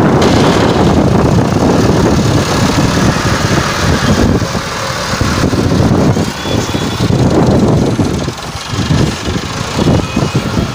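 Massey Ferguson 385 tractor's four-cylinder diesel engine running as it drags a rear scraper blade through mud and water.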